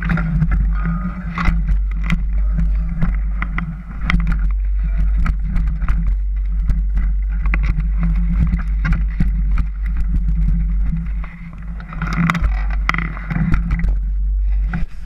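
Mountain bike ridden fast down rough dirt singletrack: a steady rumble of wind on the camera microphone, with constant rattling and clattering from the bike and tyres over roots and rocks.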